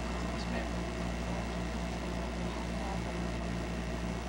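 Steady low electrical hum with an even hiss over it, the background noise of an old videotape recording, with no event standing out.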